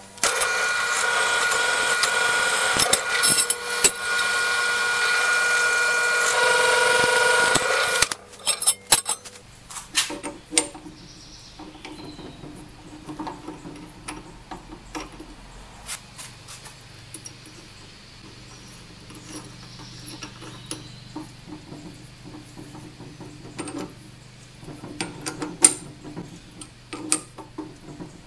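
Drill press boring through a steel mounting plate, a loud steady whine for about eight seconds that then stops. After that comes a low hum with scattered metal clicks and taps as the bit is changed in the chuck.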